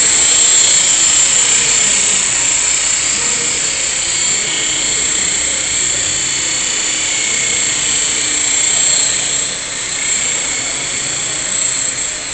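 Esky Belt CPX electric RC helicopter flying: a steady high-pitched whine from its motor and spinning rotors, the pitch drifting a little up and down as it manoeuvres.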